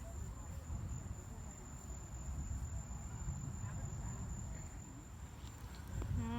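A steady, high, thin insect trill, typical of crickets, over a low rumble.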